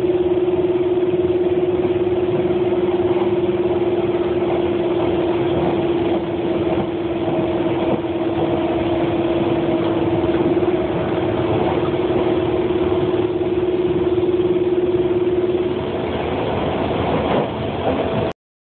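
Train running noise heard inside the carriage: a steady rumble with a constant humming tone that stops about 16 seconds in. The sound cuts off suddenly near the end.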